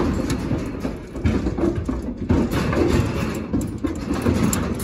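Wind buffeting the microphone as a low, uneven rumble, with a few short metallic clanks from the aluminum livestock trailer's door latch being worked.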